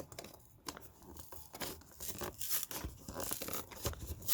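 Packaging of an ink cartridge two-pack being torn open by hand: irregular tearing and crackling that grows busier and louder after about a second and a half.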